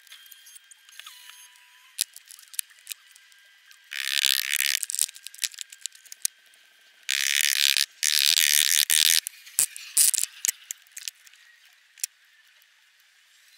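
Oil-bonded Petrobond moulding sand scooped and dropped by gloved hands into a wooden flask and spread across it: two spells of gritty rustling, about four seconds in and again for about two seconds from seven seconds in, with scattered light ticks between.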